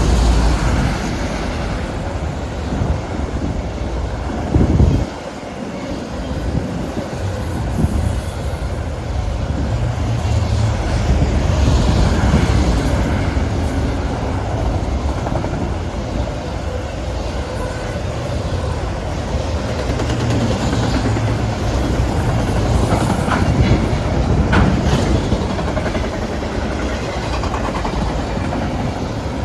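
Canadian Pacific manifest freight train rolling past a grade crossing: a steady, loud rumble of freight cars on steel rails. There is a brief louder burst about five seconds in and a few sharp clicks of wheels over the rails about 23 seconds in.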